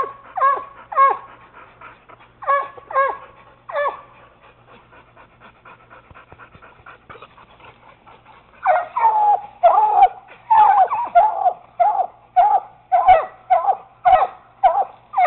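Treeing Walker coonhound pup barking treed at a caged raccoon up a tree: short, high barks about two a second, each falling in pitch. After a pause of about four seconds the barking starts again, faster and lower in pitch, and keeps on.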